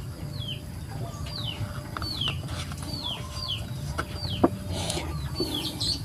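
Chicks peeping: a string of short, falling high calls, one or two a second. A single sharp click about four and a half seconds in.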